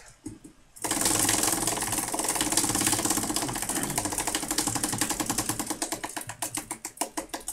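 A spinning prize wheel's clicker ticking rapidly against the pegs round its rim. The ticks start about a second in and slow down toward the end as the wheel loses speed.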